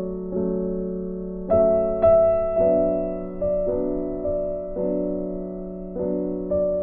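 Background music: slow chords, each struck and left to fade, with a new chord about every second.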